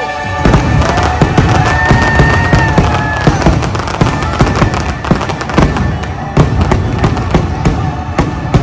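Fireworks going off in rapid succession, many sharp bangs and crackles a second, over the show's orchestral music, which holds long notes in the first few seconds.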